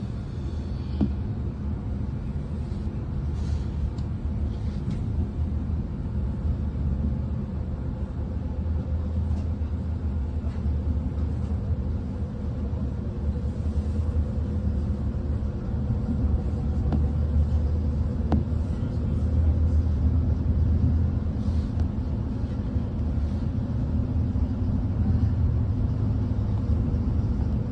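Regional train running at speed, heard from inside the passenger carriage: a steady low rumble of wheels on track, growing slightly louder in the second half, with a few light clicks.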